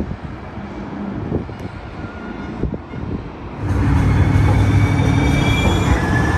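Wind on the microphone, then, a little over halfway in, a Valley Metro Rail light rail train moving along the station platform: a steady low rumble of motors and wheels with high whining tones that shift in pitch.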